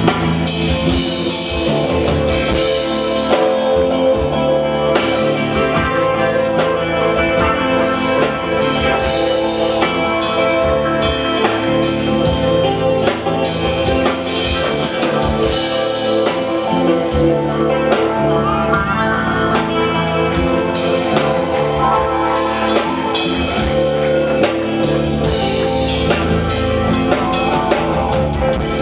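Live rock band playing an instrumental passage with no vocals: drum kit and electric guitars over a held note.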